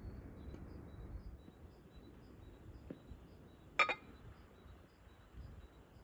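A single sharp, ringing clink of tableware being set down, about four seconds in, over quiet outdoor ambience with faint high chirps repeating a couple of times a second.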